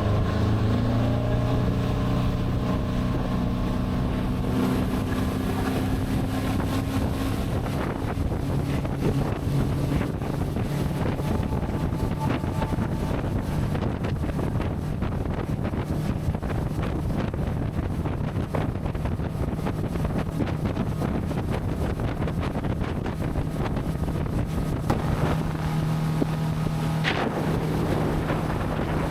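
Motorboat engine running under way, with wind blowing across the microphone.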